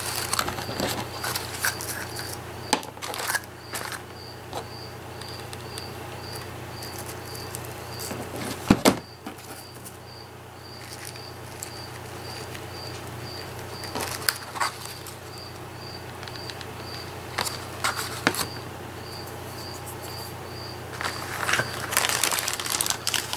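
Hands rustling and clicking against paper craft materials and trims, with a sharper click about nine seconds in, then a plastic bag crinkling near the end. A faint high chirp repeats about twice a second.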